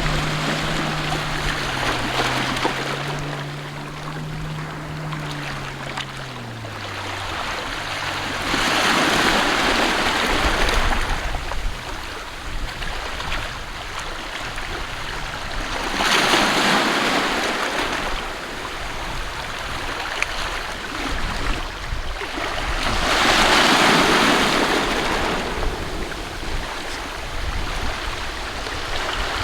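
Sea waves washing in, rising to three loud surges about seven seconds apart. A low engine hum underneath drops in pitch and fades out about seven seconds in.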